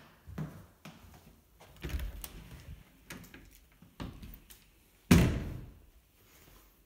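Interior panel door with a lever handle being opened: the latch clicks and a few light knocks follow, then a sharp, louder thud about five seconds in as the door swings open.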